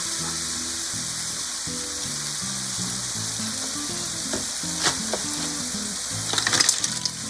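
Manila clams sizzling in hot oil and sauce in a pan as they are stirred, with a steady hiss. A sharp click about five seconds in and a quick burst of clatter near the end come from the clam shells knocking against the pan. Quiet background music plays underneath.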